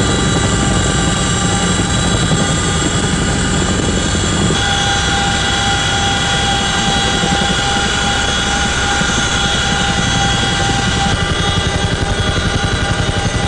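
Cabin noise of a CH-47F Chinook tandem-rotor helicopter in flight: a loud steady rotor and turbine drone with a whine of several steady tones from the gearboxes. The sound shifts abruptly about four seconds in and again near the end, where a fast pulsing beat of the rotors comes through.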